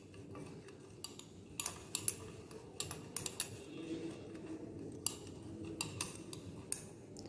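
Glass stirring rod clinking irregularly against the inside of a glass beaker as borax is stirred into rose water, a dozen or so light clinks over a low steady hum.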